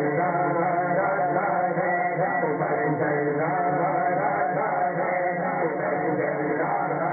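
A man's voice chanting a naat, an Urdu devotional poem, into a microphone over a PA system, a continuous melodic recitation held at a steady level.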